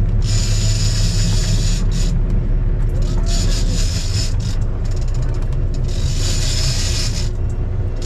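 Boat engine running with a steady low rumble, overlaid by three bursts of high buzzing, each a second or two long, from a big-game fishing reel as the angler fights a hooked marlin.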